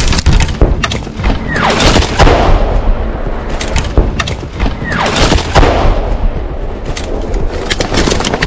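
Two incoming shells, each a falling whistle followed by a heavy explosion, about a second and a half and five seconds in. Sharp cracks sound throughout.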